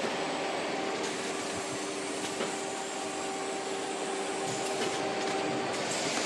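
Automated carton packing line with a delta (spider) picking robot running: a steady machine hum with two held tones over an even hiss.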